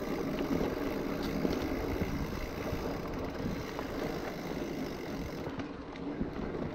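Mountain bike rolling down a dirt singletrack: a steady rumble of tyres on the trail with a few faint clicks from the bike.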